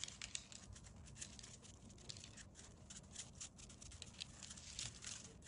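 Sesame seeds shaken from a plastic container, pattering faintly onto glazed dough and baking paper as a quick, irregular run of tiny ticks.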